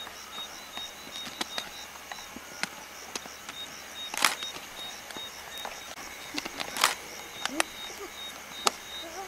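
Spotted hyenas feeding on a carcass: sharp cracks and crunches of tearing flesh and bone, the loudest about four and seven seconds in, with a couple of short low grunts near the end. A steady high chirping runs underneath.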